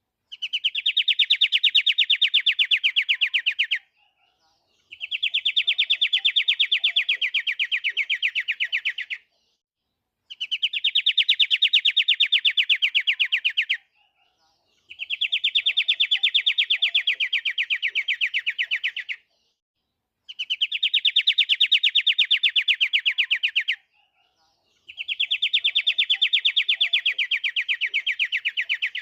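Pied triller (kapasan kemiri) singing: a rapid, dense trill about four seconds long, repeated six times with a second or so of silence between.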